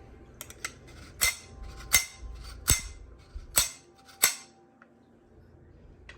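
Sharp clicks and clacks of the G&G SR-25 airsoft rifle's bolt parts being handled and fitted together, about seven separate knocks over four seconds, then quiet.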